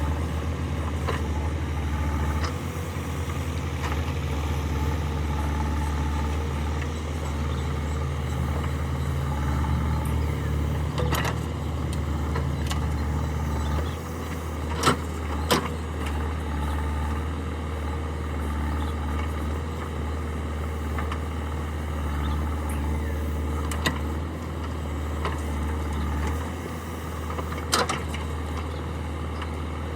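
Diesel engines of a backhoe loader and farm tractors running steadily, with a few sharp knocks or clanks, the loudest a pair about halfway through and one more near the end.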